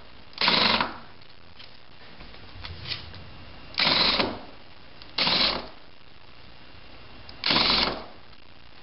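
Cordless drill running in four short bursts of about half a second each, backing out long screws from the wooden beam form.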